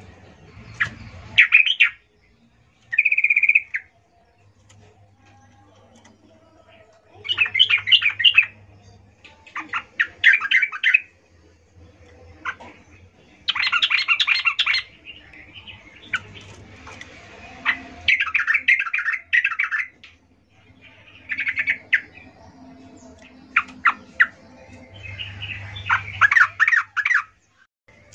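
Yellow-vented bulbul giving repeated bursts of quick, chattering call notes, each burst about a second long with short pauses between. The calls are presented as a female calling for males.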